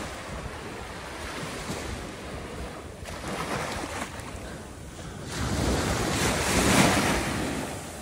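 Small waves breaking and washing up a sandy beach, with wind on the microphone. A louder wash of surf swells up about five seconds in and fades near the end.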